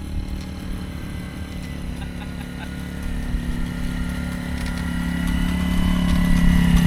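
A small motor running at a steady pitch, growing gradually louder.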